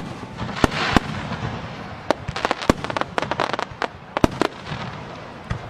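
Aerial firework shells bursting in a run of sharp bangs, with a quick cluster of crackling pops about two to four seconds in.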